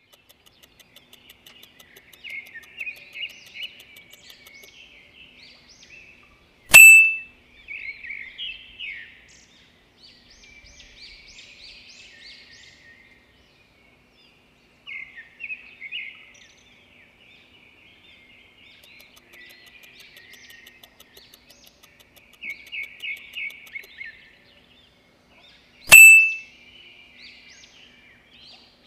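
Songbirds chirping and singing in quick runs of short high notes. Twice, about seven seconds in and again near the end, a sharp, loud click with a brief ring cuts in over them.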